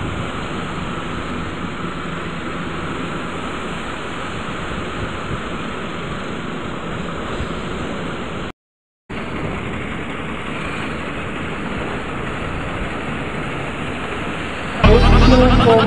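Ocean surf breaking on the beach, a steady rushing noise mixed with wind on the microphone. The sound drops out for half a second about midway, and loud music starts near the end.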